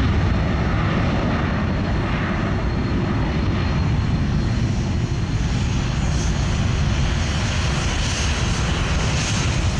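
Airbus A330-200 twin jet engines running at taxi power: a steady rumble with a thin high whine over it.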